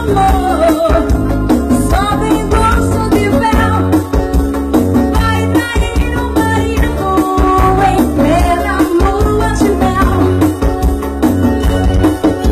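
A woman singing into a microphone over live band accompaniment, loud and continuous.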